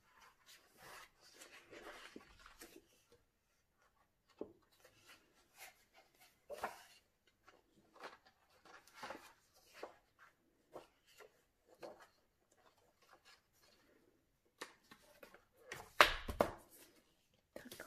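Pages of a large art book being turned by hand: soft paper rustles and swishes every second or so. About a second before the end there is a louder paper flap with a dull knock as the book is fanned through and handled.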